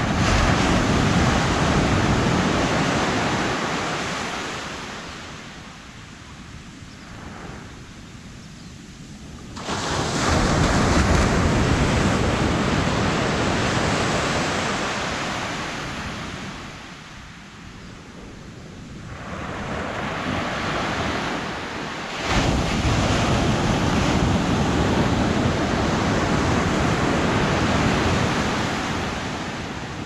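Small surf waves breaking and washing up a flat sandy beach, coming in three long surges that each rise and die away over several seconds.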